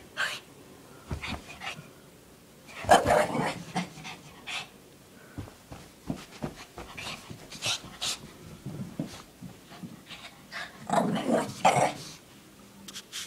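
A Shih Tzu playing rough with a blanket, letting out short play growls with scuffling and panting in between. The growls come loudest about three seconds in and again near the end.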